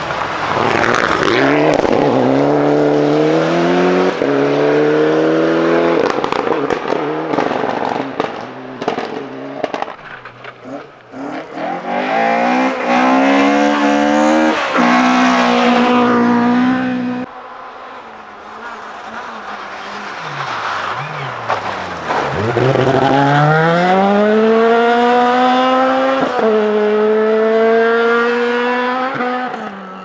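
Rally cars at full throttle on a gravel forest stage, first a Mitsubishi Lancer Evolution IX. Each engine's pitch climbs and drops back at every upshift as the car accelerates through the gears. There are sharp cracks between runs and a quieter spell in the middle.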